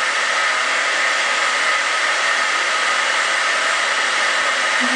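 Handheld hair dryer blowing steadily, a constant even whoosh with a faint whine running through it.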